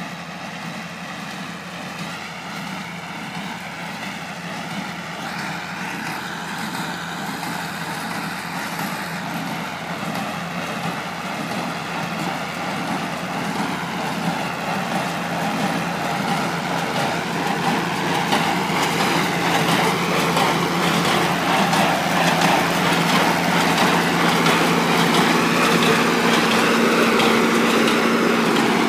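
Ford 8210 tractor's six-cylinder diesel engine running steadily under load as it pulls a small square baler, getting steadily louder as it comes closer.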